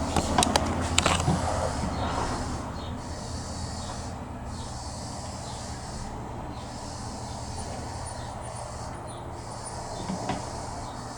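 Portable key-cutting machine running with a steady low motor hum. A few clicks and knocks from handling the machine come in the first second or so.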